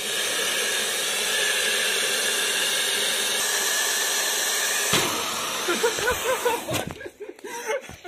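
Hair dryer blowing steadily into a balloon fitted over its nozzle. About five seconds in there is a sudden knock as the untaped balloon comes off the nozzle and flies away, followed by a wavering squeal while the dryer keeps blowing more softly.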